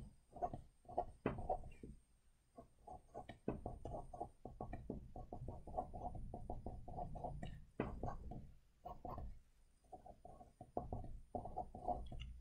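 Felt-tip pen writing on paper: a quick run of short strokes, with a few brief pauses between groups.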